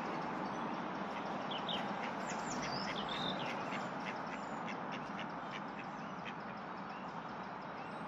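Dawn chorus of wild birds: songbirds give high whistles and a run of quick, evenly repeated notes, and ducks quack, over a steady background rush.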